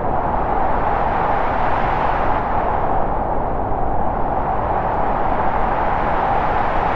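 A steady, loud rushing noise that swells and eases slightly.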